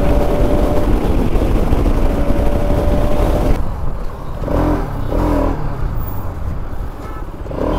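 Sport motorcycle ridden at speed, with heavy wind and road rush over a steady engine note. A little over three seconds in the wind rush drops away sharply as the bike slows into traffic, leaving the engine running lower amid traffic noise, with a few short pitched notes about a second later.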